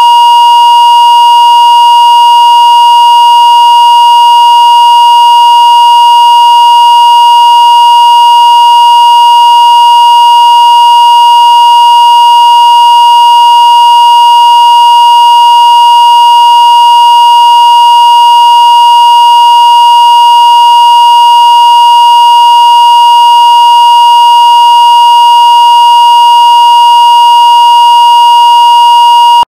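Loud, steady 1 kHz line-up test tone, the reference tone laid with colour bars at the head of a video master, held at one unchanging pitch and cutting off abruptly near the end.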